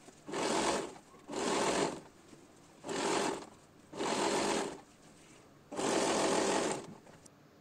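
Electric sewing machine stitching in five short runs, each about half a second to a second long, stopping briefly in between as the fabric is guided under the foot.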